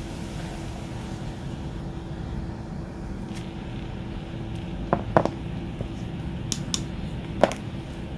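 Steady low background hum, with a handful of sharp clicks and taps in the second half as the wire-stripping pliers and wire are handled.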